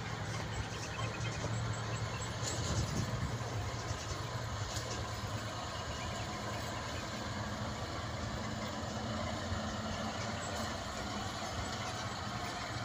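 Diesel engine of a dump truck running steadily as it moves slowly along a rough dirt track, a continuous low hum.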